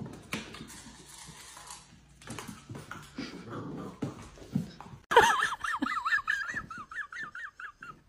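A dog gives a high, rapidly wavering whine that starts suddenly about five seconds in and carries on for about three seconds, after a few seconds of scattered low noise.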